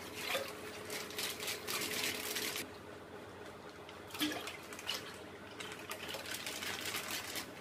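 Milk pouring from plastic pouches into a steel pot, with the plastic crinkling as the pouches are squeezed. The pouring is steadiest for the first two seconds or so, then gives way to scattered crinkles and smaller pours.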